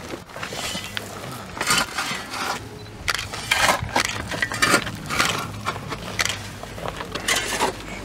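Shovels scraping into dry, crumbly soil and tossing it into a planting hole: six or seven gritty, crunching scrapes about a second apart.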